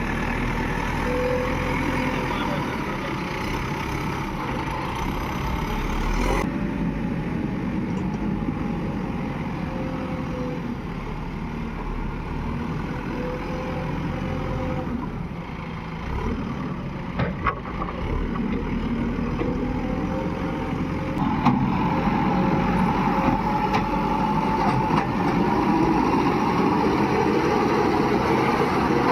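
Diesel engine of a tractor or backhoe running steadily. The sound changes abruptly twice and is louder in the last third, and a few sharp clicks come about two-thirds of the way in.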